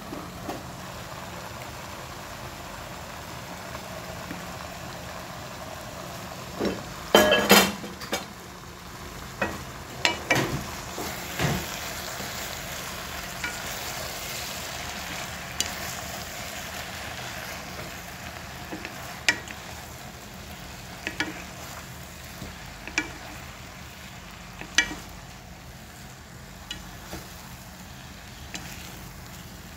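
Spinach sizzling in a hot pan while a wooden spatula stirs it, with scrapes and clattering knocks against the pan, the loudest cluster about seven seconds in and single knocks here and there afterwards.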